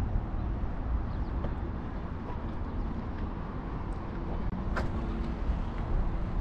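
Steady low rumble of road traffic, with a faint engine hum in the second half and one sharp click a little after the middle.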